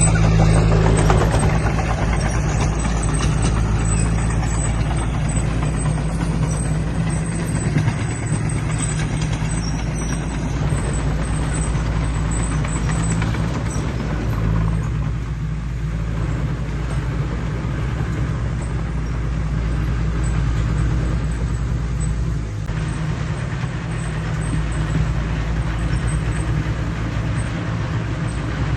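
Heavy earthmoving machine's diesel engine running steadily, a deep even drone throughout, with mechanical clatter and noise over it that is busier in the first part.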